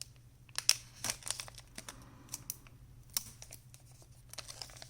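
Small supplement pill pouch being opened by hand, its packaging crinkling with a scatter of sharp crackles and clicks.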